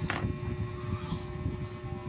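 A steady low rumble with a faint hum throughout, and one short sharp knock just after the start: a kitchen knife cutting against the cutting board.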